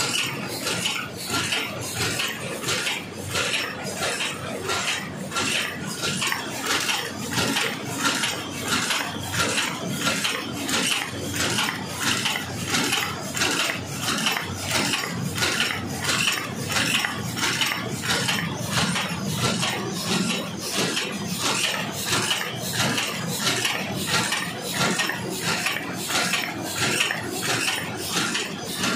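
High-speed paper cup forming machine running, a steady metallic clatter of its turret and forming stations repeating evenly at about one and a half strokes a second.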